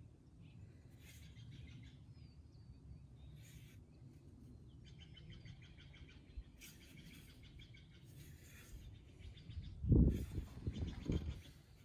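Chainsaw chain being sharpened with a hand round file: short scraping strokes spaced a second or so apart, with birds chirping. About ten seconds in there is a louder low rumble, the loudest moment.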